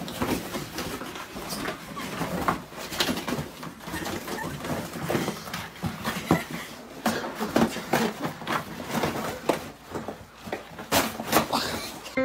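Scuffling, rustling and irregular knocks of a person and a large dog play-wrestling on a carpeted floor.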